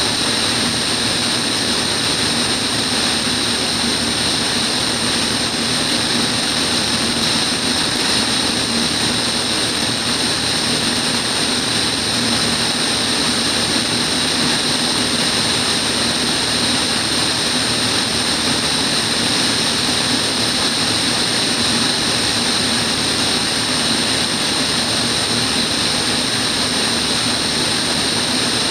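Van's RV-10 single-engine propeller plane in level flight: a steady drone of engine and propeller mixed with rushing airflow, unchanging throughout, with a thin steady high whine above it.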